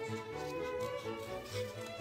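Background instrumental music, with faint snips of scissors cutting paper under it.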